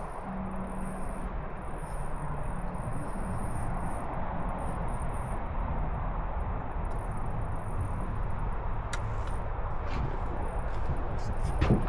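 Steady rushing of river water around a drift boat, with a few light clicks or taps near the end.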